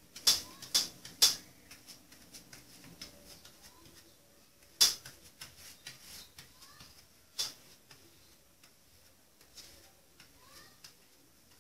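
Paintbrush tapping and scraping against the inside wall of a cardboard drum while spreading glue: a run of light irregular ticks, with three louder knocks in the first second and a half and two more later on.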